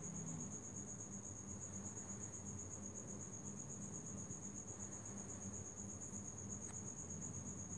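A faint, continuous high-pitched insect trill with a steady low hum beneath.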